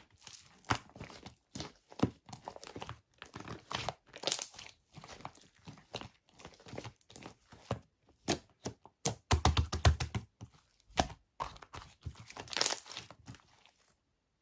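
Thin material being crinkled and torn by hand close up, in irregular rustles and crackles, with a heavier thud about nine to ten seconds in.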